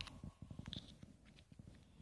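Faint scattered clicks and crinkles of thin plastic film being handled on a processed cheese slice, with one brief higher squeak under a second in.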